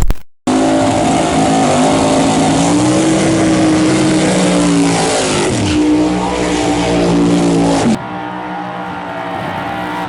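Drag-race car engines at full power during a pass, their sound starting abruptly. Around five and a half seconds in, one engine's pitch falls steeply. About eight seconds in the sound cuts to a quieter, lower engine note.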